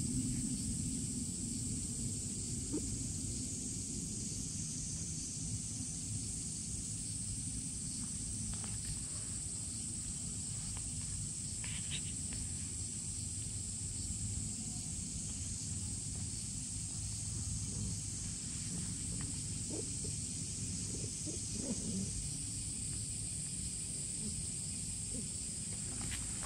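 Stray cat purring steadily while being stroked, a low continuous rumble, with a steady high-pitched hiss behind it.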